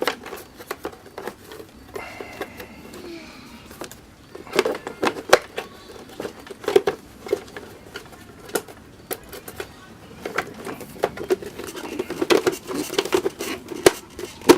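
Plastic battery box of a Honda Ruckus scooter being fitted back into place by hand, with the wiring tucked in. Irregular clicks, knocks and rattles of plastic parts come thickest around five seconds in and again near the end.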